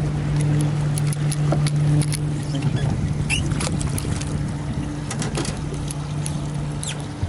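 Bay boat's outboard motor running steadily at low speed, with short splashes and knocks over it as a hooked sailfish is held at the boat side.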